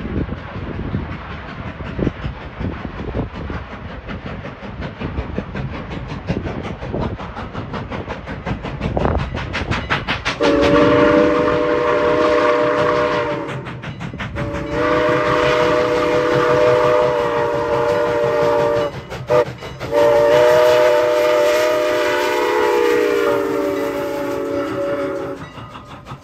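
A steam train rattles and clacks along the rails. Then, about ten seconds in, the chime whistle of 2-6-0 steam locomotive No. 89 sounds a chord of several notes in four blasts: long, long, short, long. This is the standard warning signal for a grade crossing.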